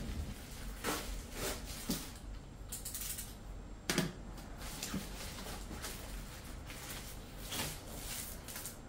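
Paper sheets and cardboard packaging rustling, sliding and tapping as loose papers are lifted out of an opened shipping box, a series of irregular short rustles and knocks with the sharpest one about four seconds in.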